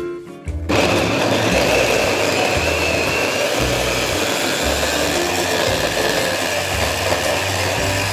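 Electric mini food chopper running, its blades chopping raw pumpkin cubes. The motor starts under a second in and runs steadily with a high whine.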